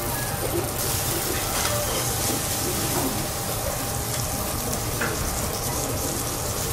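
Hot teppanyaki griddle sizzling with a steady hiss as it is scraped with a spatula and wiped down with a damp towel; the hiss grows stronger about a second in.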